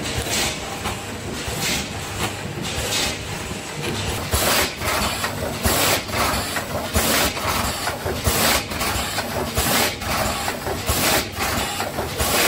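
Vertical form-fill-seal packing machine with a multihead weigher running, bagging small biscuits: a steady mechanical clatter with a short burst of hiss about every 1.3 seconds, one for each bagging cycle.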